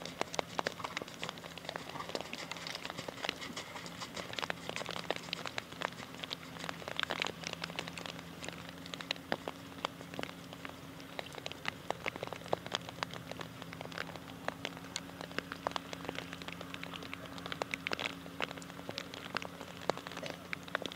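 Rain pattering in dense, irregular drops close to the microphone, with a faint steady low hum underneath.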